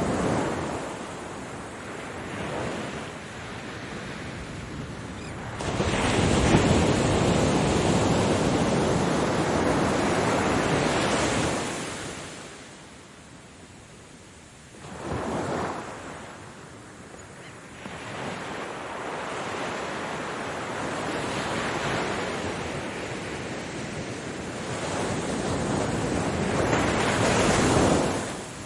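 Ocean surf: waves washing in and ebbing away in slow surges. A long, loud wash comes from about six to eleven seconds in, a short one follows around fifteen seconds, then the sound builds gradually to a loud wave near the end and falls away.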